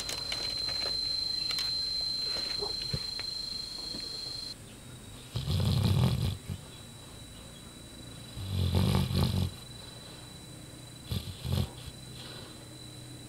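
A sleeping dog snoring. Two loud snores, each about a second long and about three seconds apart, are followed near the end by a fainter, shorter one.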